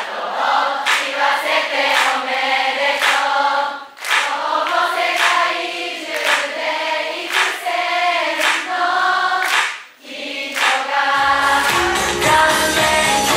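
Many voices singing a birthday song together in phrases with short pauses. About eleven seconds in, a backing track with a heavy bass beat comes in under the singing.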